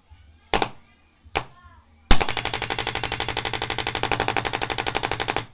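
Homemade solenoid-valve airgun firing: two single shots about a second apart, then, about two seconds in, a rapid even full-auto burst of well over ten shots a second that lasts about three seconds and cuts off suddenly.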